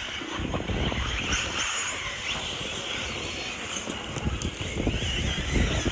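1/8-scale off-road RC buggies racing, their motors whining and revving up and down as they go through the corners, with wind buffeting the microphone.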